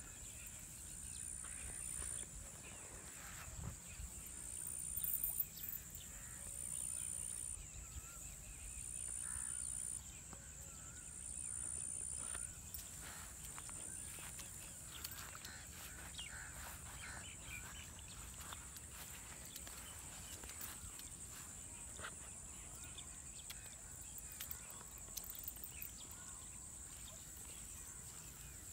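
Outdoor ambience of a steady high-pitched insect drone, with footsteps and rustling through grass as the walker follows the monkey, including a brief louder rustle about five seconds in.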